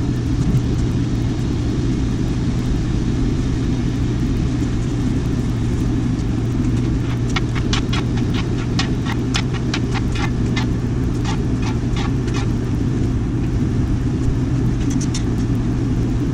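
Propane turkey-fryer burner running full up under a cast iron wok of boiling water, a steady low rush. From about seven seconds in, a utensil scrapes and taps against the wok in a quick run of ticks for several seconds.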